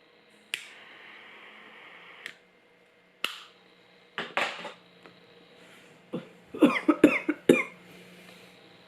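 A woman smoking a cigarette fast: clicks, a steady hiss of about two seconds and short noisy breaths, then a burst of about six quick coughs from the smoke in her lungs.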